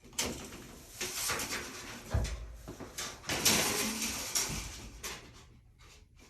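Electrical cable being pulled through a hole in the drywall, scraping and rubbing in several bursts that die down near the end.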